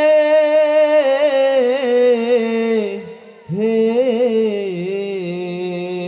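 A man singing a slow chanted line into a microphone: long held notes with wavering ornaments, a short breath about three seconds in, then a new phrase that swoops up and settles on a lower held note.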